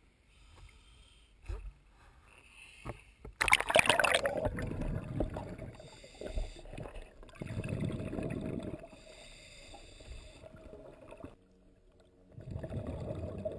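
Water splashing loudly as the camera dips below the surface about three and a half seconds in, then muffled underwater sound with swells of bubbling from a scuba diver's exhaled breath.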